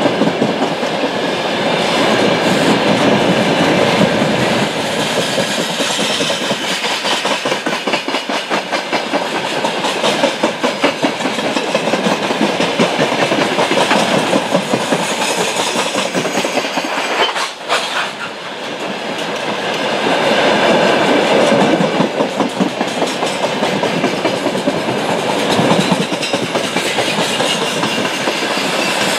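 A long freight train of open-top wagons rolling past close by, the wheels clattering rhythmically over the rail joints in a steady clickety-clack. There is a brief lull about two-thirds of the way through.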